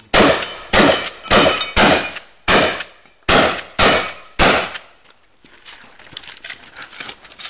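Benelli Supernova pump-action shotgun fired eight times in quick succession, about a shot and a half per second, the pump worked between shots. After the string comes a run of fainter metallic clicks.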